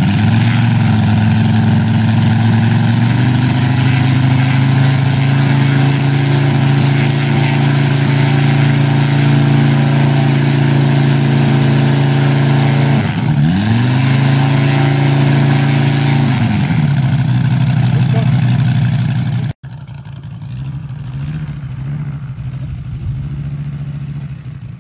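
Moki 400 radial engine of a half-scale Gee Bee R2 model being run up. It holds high revs, dips and picks up again about halfway through, then drops to a lower speed. After an abrupt cut near the end, an engine is heard more faintly from farther away.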